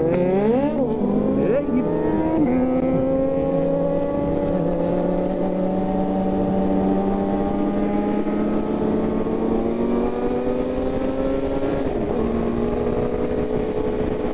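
Motorcycle engine revving up and down briefly in the first two seconds, then running at a steady pitch.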